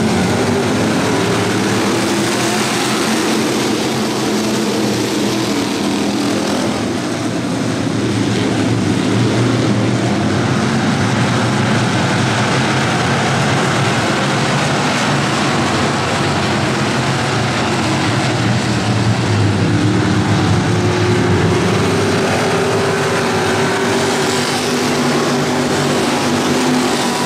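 Engines of a pack of dirt-track stock cars running together at once, a loud steady engine sound with several pitches overlapping.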